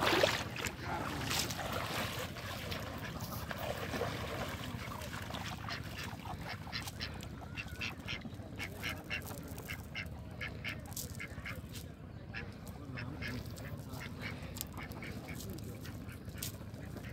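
Ducks quacking repeatedly in short, scattered calls, over a steady low background rumble.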